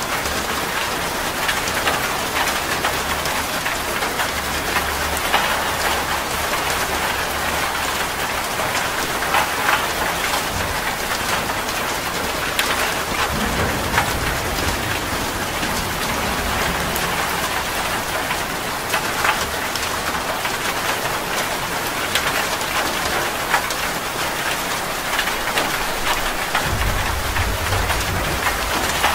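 Steady heavy rain splashing on a surface, with many separate drop hits close by. A low rumble swells underneath near the end.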